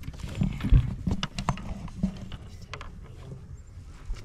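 Irregular knocks and clicks, with one heavy thump about three quarters of a second in.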